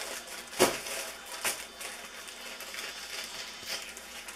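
Handling noises at a kitchen counter: a sharp knock about half a second in, a smaller one about a second later, then light rustling and clicking.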